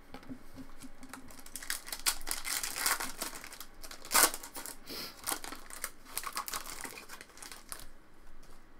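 Foil wrapper of a trading card pack crinkling and tearing as it is handled and opened by hand, in a run of crackles. The loudest crackle comes about four seconds in.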